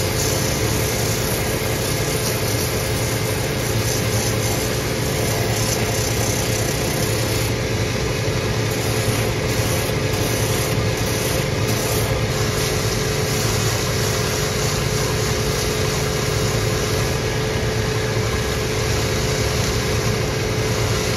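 Shoe finishing machine running steadily, its motor giving a constant hum with a steady tone, while the sole edge of a leather boot is sanded against a spinning wheel.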